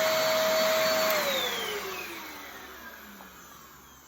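Sowtech cyclone vacuum cleaner running with a steady motor whine, switched off about a second in; the whine falls in pitch and fades as the motor spins down.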